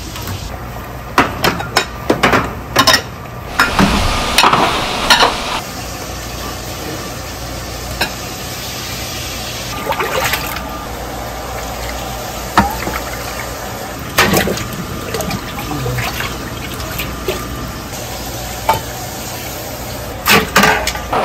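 Busy restaurant-kitchen cooking sounds: a steady hiss with frequent sharp clinks and clatters of metal pots and utensils.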